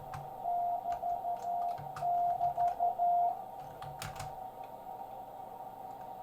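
Morse code (CW) on a 40-meter amateur radio: a single steady tone keyed in dots and dashes for about three seconds, over a hiss of band noise and a fainter steady tone. A couple of sharp clicks come about four seconds in.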